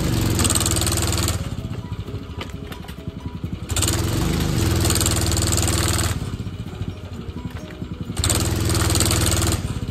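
Gas engine of a Little Beaver hydraulic post-hole digger running, getting louder and harsher three times for a second or two as the auger is driven down into heavy clay soil, then easing back in between.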